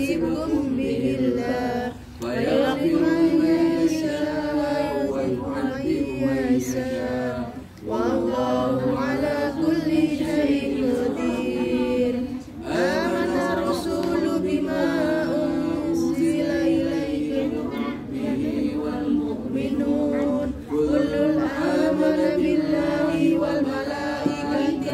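A group of voices reciting the Qur'an together in Arabic in a continuous chanted recitation, broken by short breath pauses about 2, 8 and 12.5 seconds in.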